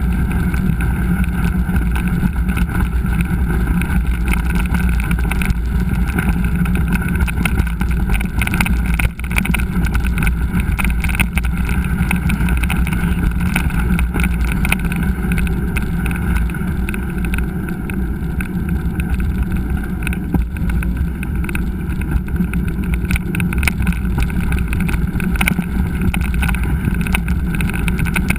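Steady loud rush of wind and trail noise on a GoPro carried on a mountain-bike ride, with constant small rattles and knocks.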